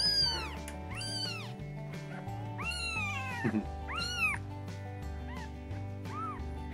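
A six-day-old kitten mewing repeatedly, about six high calls that each rise and then fall in pitch, with a longer call about three seconds in and the last ones fainter. Soft background music plays underneath.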